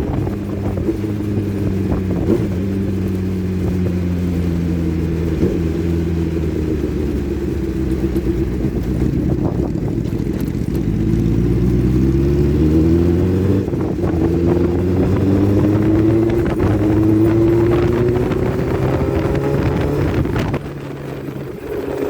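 Motorcycle engine running under way with wind noise. Its pitch sinks slowly as it slows, then climbs for several seconds as it accelerates. The sound drops off suddenly near the end.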